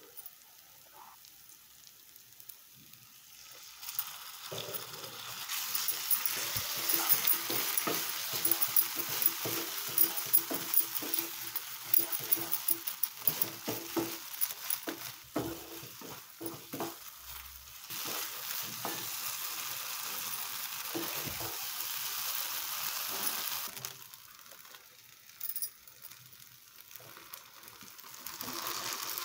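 Spice paste sizzling in a nonstick frying pan as curd is stirred into it with a spatula, with many short scraping knocks of the spatula against the pan. The sizzling starts about four seconds in and eases off a few seconds before the end.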